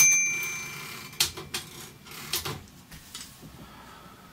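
Royal KMM manual typewriter's margin bell dings once and rings out, followed by a few separate mechanical clicks from the machine.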